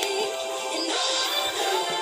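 Background music: a song with sustained melodic notes.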